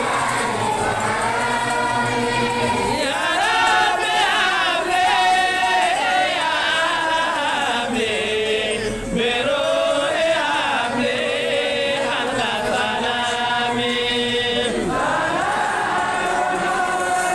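A group of voices chanting together in a sustained, wavering melody, a sung devotional chant.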